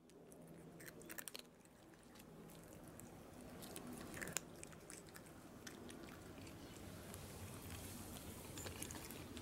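A cat crunching and chewing dry kibble, heard as faint, irregular small crunches.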